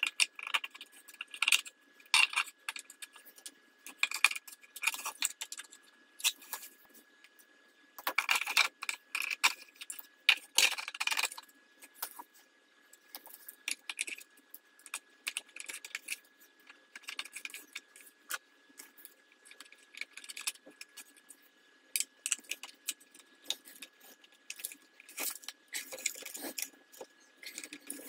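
3D-printed plastic gears and a steel shaft clicking and clattering in irregular bursts as they are slid together and fitted into a 3D-printed gearbox housing.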